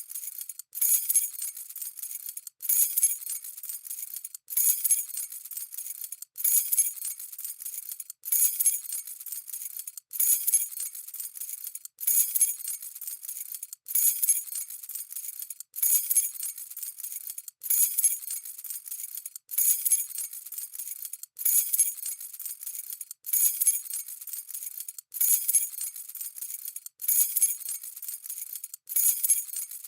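A bunch of metal keys jangling and clinking together, shaken in short bursts of about two seconds that repeat evenly with a brief break between each.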